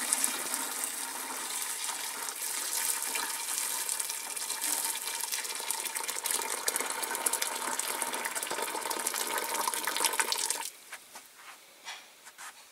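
Boiling water poured steadily into a container, a continuous splashing pour that stops suddenly about ten and a half seconds in, followed by a few faint clicks.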